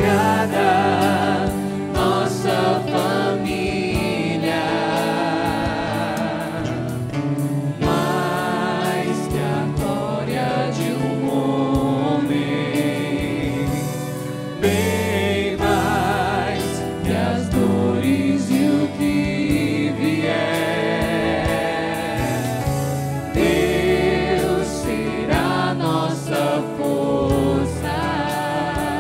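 A woman singing a Portuguese-language Christian love song with vibrato, accompanied by a church music group.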